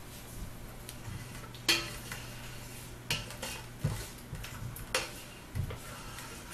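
A metal spoon clinking and scraping against a bowl and a stainless steel pot while scooping cheese sauce. There are about five sharp knocks, the loudest about a second and a half in.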